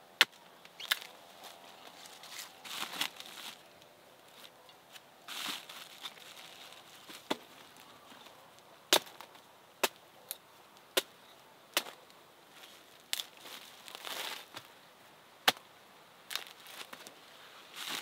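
About a dozen sharp knocks and clicks at irregular intervals, with a few short rustling swishes between them, as from handwork.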